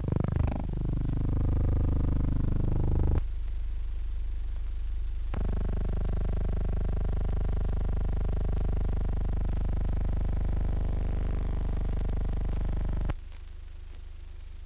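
Propeller aircraft engines droning steadily, dropping in pitch right at the start. The drone cuts off abruptly about three seconds in, comes back about two seconds later, and drops away near the end.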